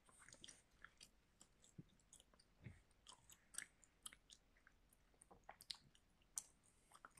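Near silence: faint room tone with scattered soft clicks and rustles.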